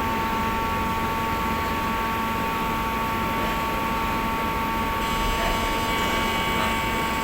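EMA leather-cutting machine running: a steady whine and hum over constant noise, while its cutting knife is lowered to set the cutting depth. About five seconds in, a higher whine joins.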